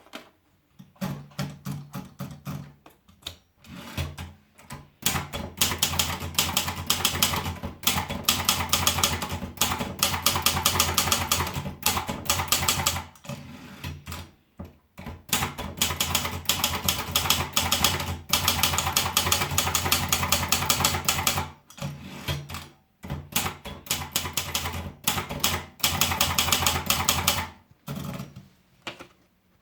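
Sperry Remington typewriter being typed on: fast runs of key strikes clacking against the platen, broken by a few short pauses.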